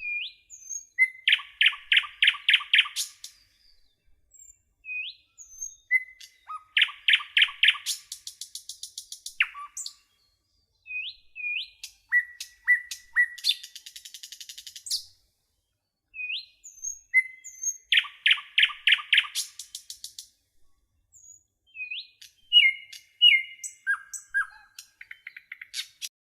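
A songbird singing in repeated phrases. Each phrase opens with a few short rising notes and ends in a quick run of about six loud notes, with pauses of a second or two between phrases.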